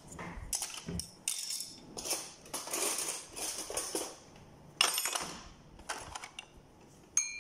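A string of short scraping and rustling handling noises with a few light knocks. Near the end, a spoon clinks against a ceramic bowl.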